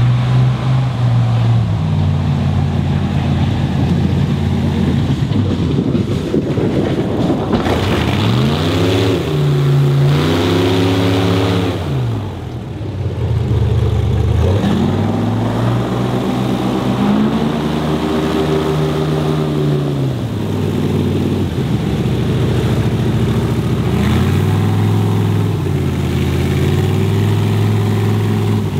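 Airboat engine and propeller running, the pitch rising and falling several times as it revs up and eases off.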